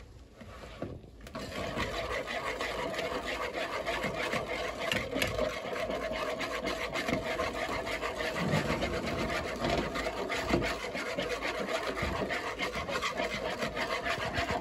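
Wire whisk beating eggs in a plastic bowl: a fast, continuous rasping scrape of the wires against the bowl, starting about a second in. The eggs are being tempered as hot milk is spooned in.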